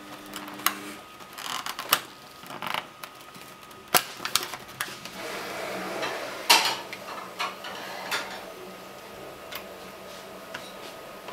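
Plastic parts of a snap-together electronics construction kit being handled: irregular sharp clicks and knocks as pieces are taken from the plastic tray and pressed onto the clear plastic base grid, with some soft rustling between them.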